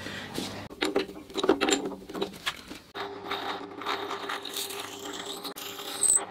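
Drill press running, its twist bit boring into a hardwood bed leg with a steady motor hum and rapid scraping and clicking as the bit cuts. It is cutting a hole for an insert nut.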